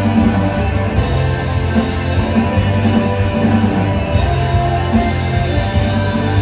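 A rock band playing live: guitar, bass and drums.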